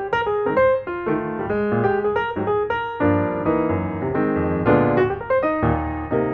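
Background piano music, a quick run of notes over chords, with no speech.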